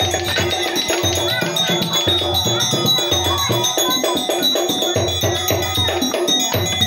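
Percussion music for a topeng monyet street monkey show: a drum beating a steady rhythm under ringing, bell-like metal tones.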